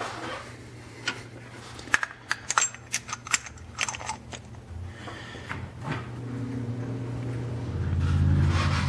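Light metallic clicks and clinks of tools and a removed fuel injector being handled on a Cummins diesel cylinder head, a quick run of them in the first few seconds. A steady low hum runs underneath and grows louder near the end.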